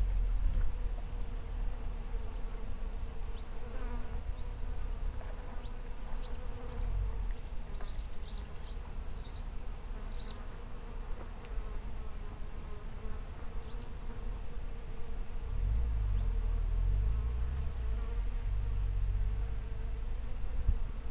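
An insect buzzing steadily close to the microphone, its pitch wavering slightly. Under it runs a low rumble that swells near the start and again in the last third, and a few short high chirps come about halfway through.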